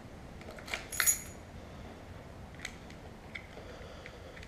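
Small hard clicks of a BMW Navigator V satnav being pushed and locked into its handlebar cradle: two sharp clicks close together about a second in, then a few fainter ticks.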